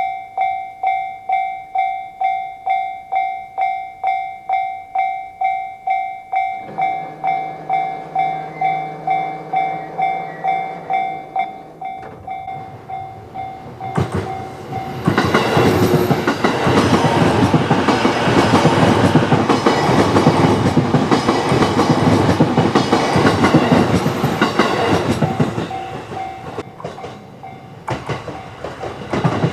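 Japanese level-crossing alarm ringing in a steady two-tone pattern about twice a second. About seven seconds in a low hum joins it. Around fourteen seconds in a JR Itsukaichi Line electric train passes over the crossing, its wheels clattering rhythmically over the rail joints for about ten seconds before dying away near the end.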